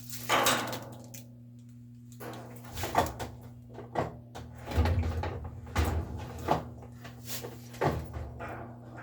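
Irregular knocks and clunks, about seven over several seconds, from parts and tools being handled during a washing machine repair, over a steady low hum.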